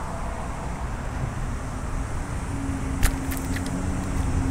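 Road traffic: a steady low rumble of passing vehicles, with a steady hum joining about two and a half seconds in. A sharp click sounds about three seconds in.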